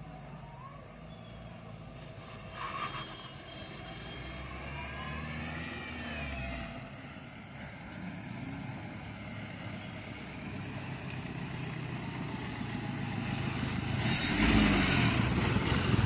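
A road vehicle's engine running, growing steadily louder toward the end, with a short hissing burst near the end.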